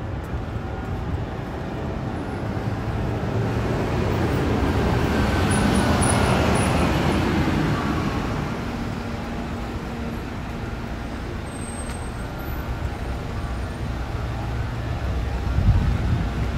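A motor vehicle passing by: its sound swells to a peak about six seconds in and fades away, with a falling whine as it goes past, over a steady low traffic rumble.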